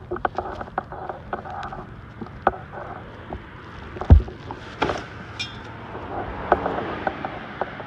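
Scraping, rustling and knocking of debris being cleared off a floor, with a heavy thud about four seconds in and a brief metallic rattle just after.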